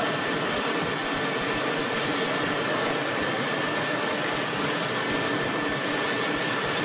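Steady machine running noise with a thin constant whine from a hot coil-spring winding machine as it turns a mandrel, wrapping a red-hot steel bar into a coil.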